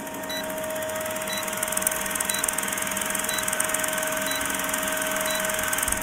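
Old film-projector sound effect for a leader countdown: a steady whirring clatter with a hum and crackle, and a short high beep once a second.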